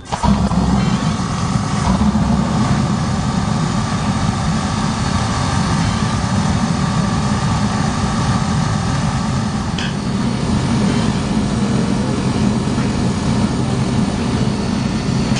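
Two diesel-fired MBU burners lighting at the push of a button, coming on suddenly, then running with a steady low mechanical noise of blower and flame.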